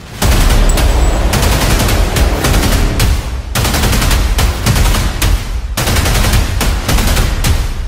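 Loud, rapid automatic gunfire in long bursts, with short breaks about three and a half and six seconds in.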